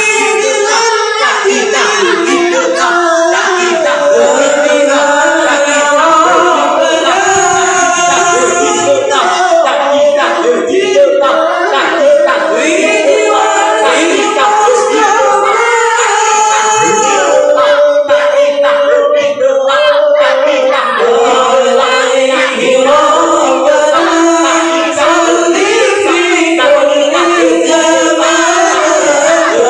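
Congregation singing Islamic devotional chant (sholawat) together in unison, a continuous melodic chorus of many voices.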